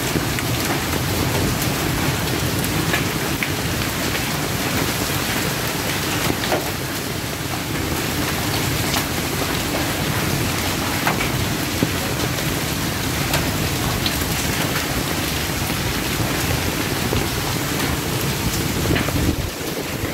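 Heavy hailstorm with rain: a dense, steady rush of rain, with scattered sharp ticks from hailstones striking the ground and nearby surfaces.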